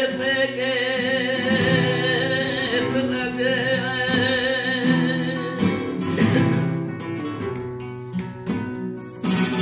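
A flamenco singer holds one long note with a wavering pitch over two flamenco guitars. The note ends a little over halfway through, and the guitars carry on with strummed chords.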